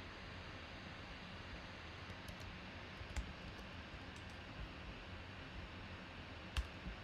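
A few scattered clicks of a computer mouse and keyboard while a spreadsheet tab is renamed, over a steady faint hiss; the sharpest click comes near the end.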